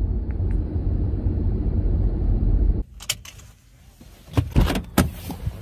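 Steady low rumble of road and engine noise inside a moving Honda car, cutting off suddenly about three seconds in. Then several sharp clicks and knocks.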